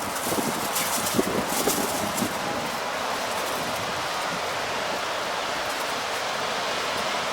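Strong wind blowing as a steady rush of noise, with some rustling in the first two seconds.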